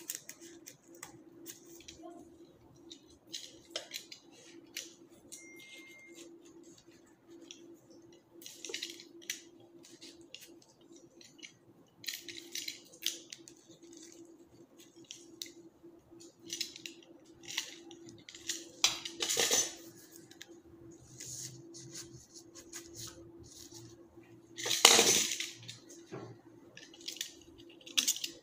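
Florist's scissors snipping flower stems, with stems and leaves rustling as they are worked into a wicker-basket arrangement: irregular short snips and rustles, with two louder rustling bursts, one about two-thirds through and one near the end. A steady low hum runs underneath.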